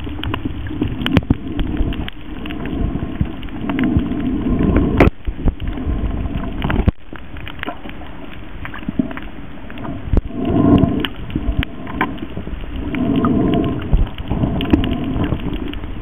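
Underwater sound on a coral reef: a dense crackle of sharp clicks over a rushing wash, swelling louder for a second or so every few seconds.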